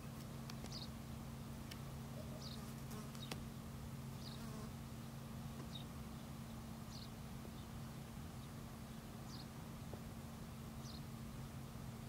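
A steady low buzz holding one pitch throughout, with faint short high chirps every second or so.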